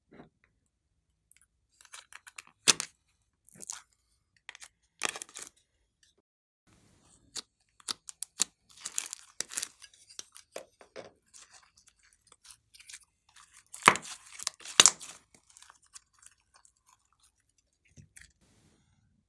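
Glossy slime handled by hand: squeezed and stretched, giving irregular bursts of sticky crackling and sharp popping clicks.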